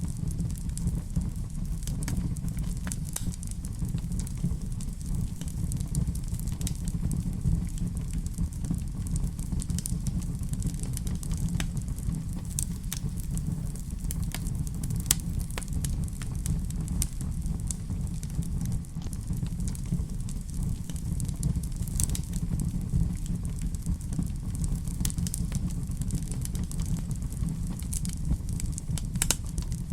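Wood fire crackling in a fireplace: irregular sharp pops and snaps over a steady low rumble of flames.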